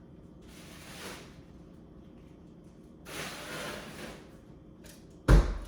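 Kitchen handling sounds: a soft noise about a second in, a longer noisy stretch about three seconds in, and one sharp, loud knock near the end, like a drawer or door shutting.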